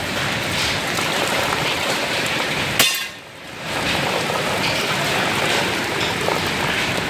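Heavy rain mixed with small hailstones, hitting a wet porch floor and paving as a steady downpour with scattered ticks. About three seconds in there is a sharp click, and the sound drops out briefly before the rain comes back.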